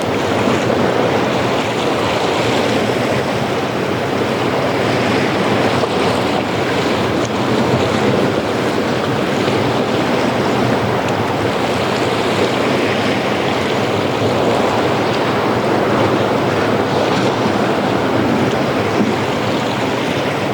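Ocean surf breaking and washing on a beach: a steady rush of waves.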